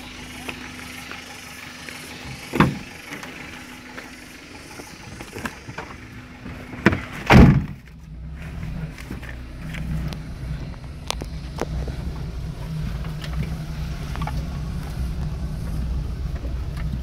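Suzuki Carry van's engine running steadily, with loud door thumps about two and a half and seven seconds in. After that, the engine is heard louder and rougher from inside the cab as the van moves along a dirt track.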